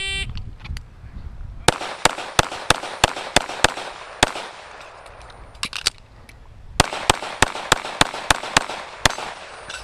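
Shot timer's start beep, then rapid pistol fire from an STI Trojan .45 ACP: a string of about nine shots at roughly three a second, a pause of about two and a half seconds, then another string of about ten shots.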